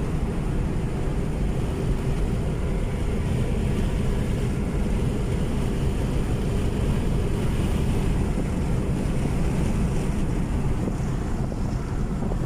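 Steady road and engine noise of a moving vehicle, with wind rushing over the microphone.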